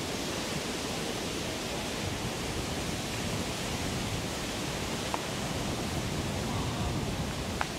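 Steady rushing noise of wind on a handheld camera's microphone outdoors, with two faint ticks, one about five seconds in and one near the end.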